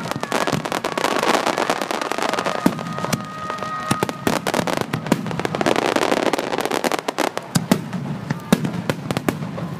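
Fireworks finale: a dense barrage of aerial shell bursts, many sharp bangs in quick succession over a continuous crackle.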